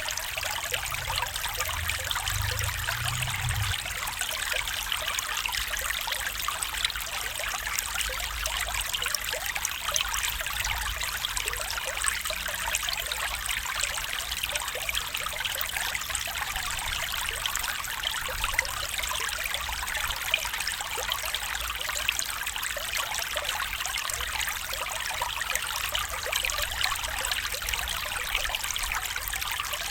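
Small stream running and trickling steadily, a continuous babble of water.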